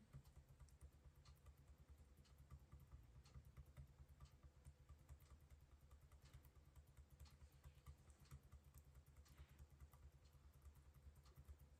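Faint, quick clicking of typing on a laptop keyboard, over a low steady hum.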